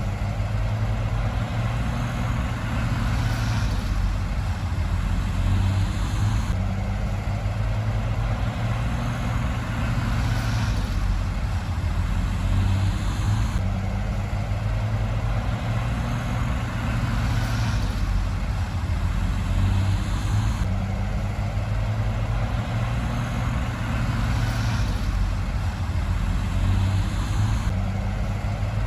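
Heavy earthmoving machinery's diesel engine running steadily with a deep rumble, with a swell in the sound that repeats about every seven seconds.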